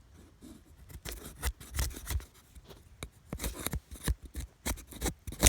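Camillus Titanium Model 19308 knife shaving a feather stick: a run of quick, irregular scraping strokes of the blade on wood starting about a second in, ending in a sharp crack as the stick snaps in half.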